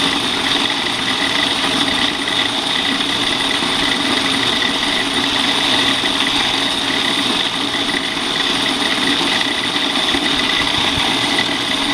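Commercial laundromat machines running: a loud, steady mechanical hum and whir with a constant high whine.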